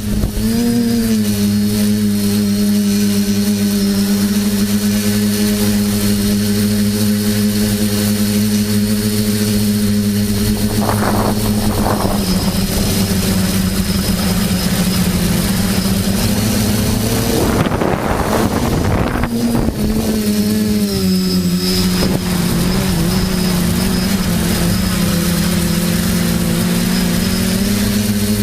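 TBS Discovery quadcopter's electric motors and propellers whirring in flight with a steady pitched hum. There are brief gusty rushes about a third of the way in and again around two-thirds, after which the pitch drops slightly and wavers.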